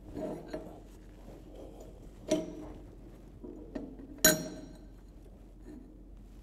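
Steel plates clanking against steel backup strips on a metal bench as they are set in place: a few light knocks, then two loud ringing clanks, about two and four seconds in.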